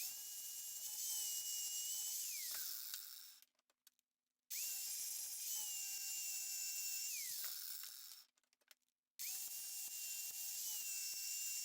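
Electric drill running in three separate bursts of two to three seconds each. Each burst is a steady high whine that drops away quickly as the motor stops, with silence between the bursts.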